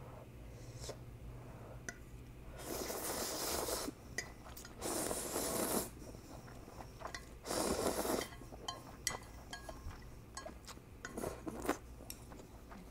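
A person slurping ramyun noodles three times, each slurp lasting about a second. Light clicks of chopsticks against a ceramic bowl fall between the slurps.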